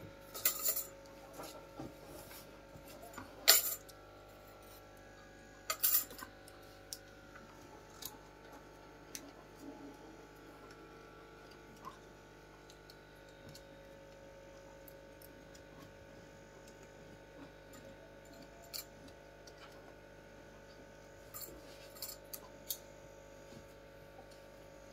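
Scattered sharp clicks and taps from hand cutting of craft material, the loudest about three and a half seconds in, over a faint steady hum.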